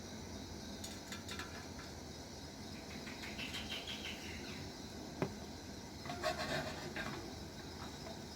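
Jaggery melting in butter or ghee in a pan over a gas flame: a quiet, steady hiss with a few light clicks and one sharp tap about five seconds in.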